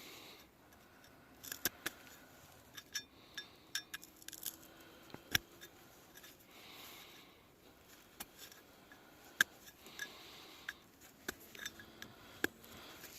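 Irregular sharp clicks and clinks of small hard objects knocking together, some with a brief metallic ring, with a few soft breaths in between.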